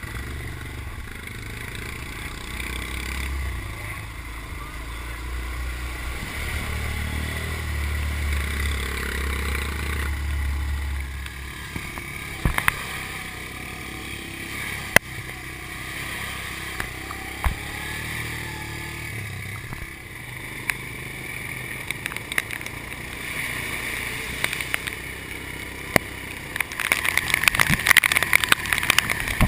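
ATV engine running as it is ridden, a low drone that swells for a few seconds near the middle, with a few sharp knocks. Near the end a dense crackling noise joins in.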